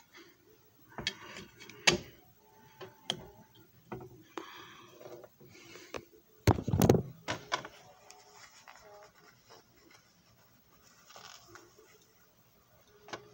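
Irregular handling noise from a handheld phone being moved about: clicks, knocks and rustling, with a heavier bump about six and a half seconds in.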